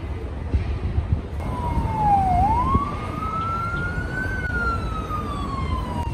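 An emergency vehicle siren wailing: a single tone that starts about a second in, dips, rises slowly to a peak and falls slowly again, over the low rumble of city traffic.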